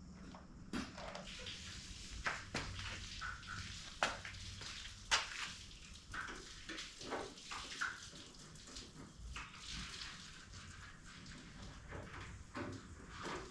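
Irregular light clicks, taps and knocks of hand tools and metal parts being handled while working on a truck's radiator, the sharpest about 4 and 5 seconds in.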